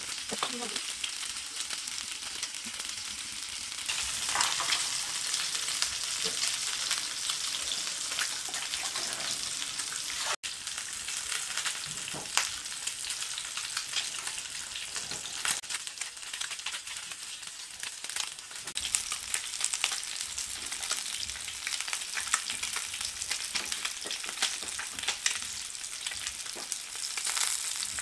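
Pieces of food frying in hot oil in a pan: a steady sizzle full of small crackles and pops, with a few sharper clicks mixed in.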